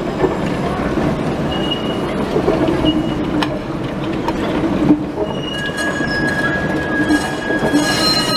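Articulated city tram rolling past close by on street tracks with a steady rumble of wheels on rail. From about halfway through its steel wheels squeal against the rails, a few thin, steady high-pitched tones held over the rumble.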